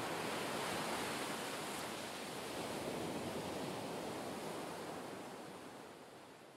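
Sea water rushing and churning, a steady wash of waves and white water, fading out over the last couple of seconds.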